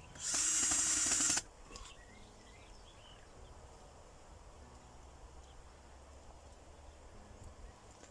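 Power drill running in one short burst of about a second near the start, with a steady pitched whine; after it, only faint background noise.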